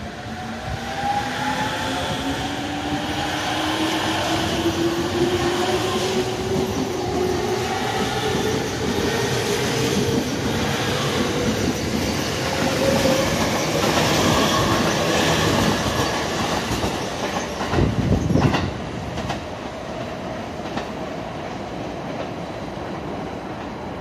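JR East E231 series 0 electric commuter train pulling away: its traction motors and inverter whine rising steadily in pitch for about twelve seconds as it accelerates, over the noise of wheels on rail as the cars pass. A brief low rumble comes about three-quarters of the way through, and then the train noise fades as it leaves.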